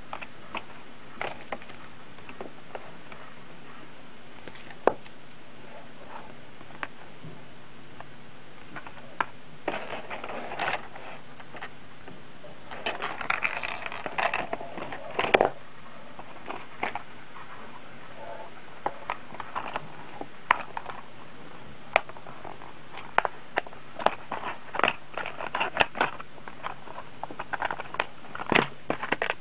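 Cardboard gift box and plastic packaging being handled: scattered taps and clicks, with bursts of crinkling and rustling, the longest about halfway through and several more near the end, over a steady background hiss.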